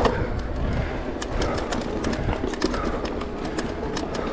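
Mountain bike ridden fast down a dirt trail: tyre rumble on the ground, with frequent clicks and rattles from the bike, and wind noise on the microphone.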